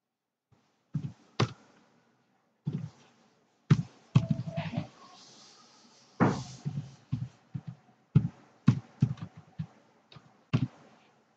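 Computer keyboard being typed on: irregular dull keystroke thuds, around a dozen and a half, in short runs with pauses between.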